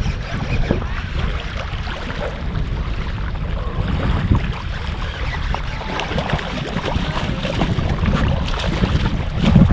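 Wind buffeting the microphone, a heavy steady low rumble, with scattered small clicks and rustles over it.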